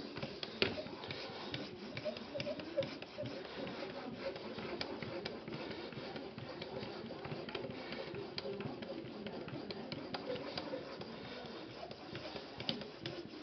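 A sharpening stone on an Edge Pro Apex rubbing back and forth along the edge of a Spyderco Endura 4's ZDP-189 steel blade: a steady scraping broken by small clicks as the strokes turn.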